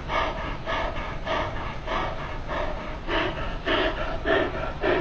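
A cat making a rapid run of short, breathy calls, about three a second.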